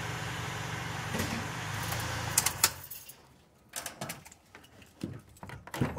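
A steady low mechanical hum that cuts off about two and a half seconds in, followed by a scatter of clicks and knocks.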